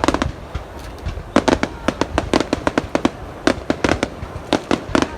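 Fireworks exploding in a rapid, irregular string of sharp bangs, several a second, over a low rumble, with a short lull near the start.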